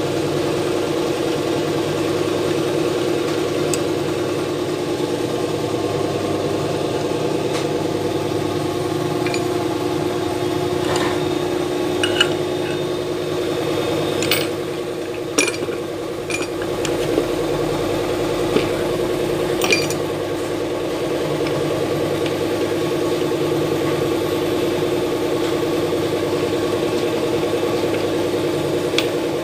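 An engine running steadily at idle, with a few short metallic clicks and taps between about 11 and 20 seconds in.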